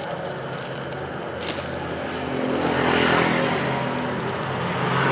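A steady low hum under soft rustling and handling noises, which swell about three seconds in.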